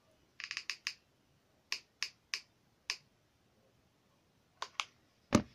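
Hot glue gun trigger clicking: a quick run of about six clicks, then single clicks every so often. A louder knock comes near the end.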